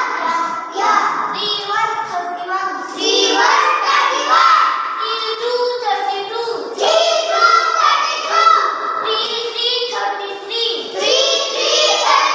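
A young child chanting numbers aloud in a sing-song classroom recitation, with children's voices taking up the chant.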